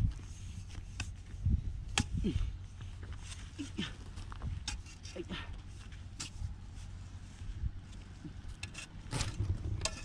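A hoe chopping into hard, dry cracked soil: irregular sharp strikes of the blade and clods of earth breaking loose, over a steady low rumble.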